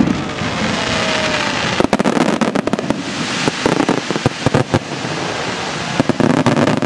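Fireworks shells bursting in quick succession over a steady, dense crackling hiss, with clusters of sharp bangs about two seconds in, through the middle and again near the end.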